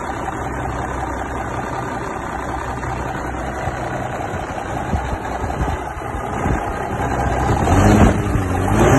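The truck's 14-litre (855 cubic inch) Cummins inline-six diesel idling steadily, then revved up and back down about eight seconds in, with the revs rising again at the very end.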